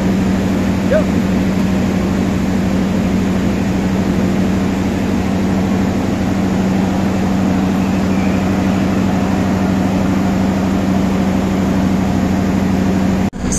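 Steady diesel drone of a passenger train idling at the platform, a constant low hum with no change in speed.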